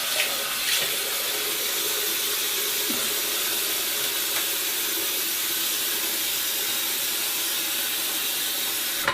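Bathroom sink tap running, a steady hiss of water pouring into the basin, which stops abruptly near the end.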